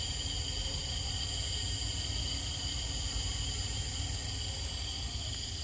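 Panasonic 2-ton inverter air conditioner outdoor unit running with its compressor on: a steady low hum with a thin, steady high whine. The unit is stuck in its first (low) speed step and does not step up to the higher speeds, the fault under repair.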